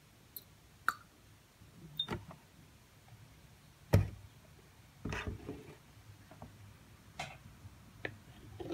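Small kitchen handling knocks and clicks. About four seconds in there is a single louder thump as the milk carton is set down on the tabletop. After that, a spoon clatters and taps against a glass mixing bowl of whipped coffee.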